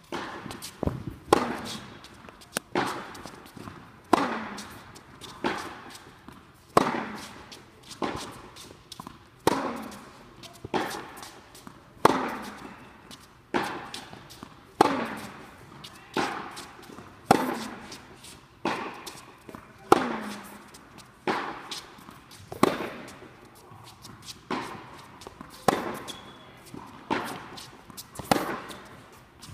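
Tennis rally: a ball struck by rackets in turn, a sharp echoing pop about every second and a half, with a short falling sound after many of the hits, in a reverberant indoor hall.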